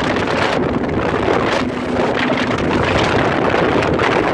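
Wind buffeting the phone's microphone on a moving motorboat, a loud steady rush with a faint low engine hum coming and going beneath it.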